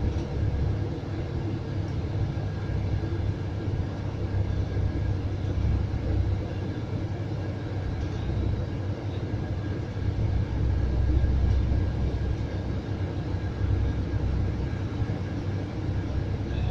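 Steady low rumble of a Scania coach on the move, heard from inside the passenger cabin: engine and road noise.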